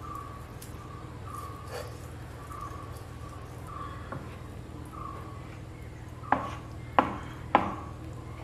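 Kitchen utensil sounds as cooked grated beetroot is scraped from a pan into dosa batter. Near the end a spoon is knocked three times against a rim; each sharp tap rings briefly.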